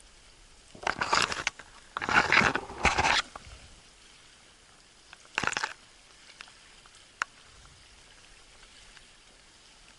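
Leaves and twigs of willow brush rustling and scraping close to the microphone in several short rough bursts, the loudest around two to three seconds in, followed by a single small click a little after seven seconds.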